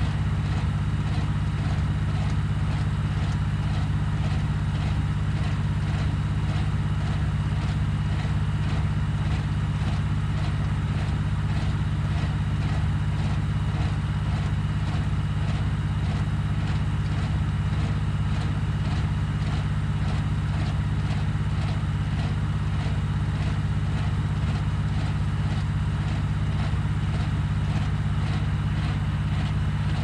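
Tractor engine running steadily under power, driving an old Belsaw circular sawmill through its PTO, with the big blade spinning free and not cutting.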